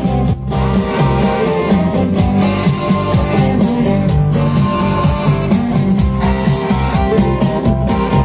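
Live rock band playing an instrumental passage: an electric guitar over drums, with a steady beat.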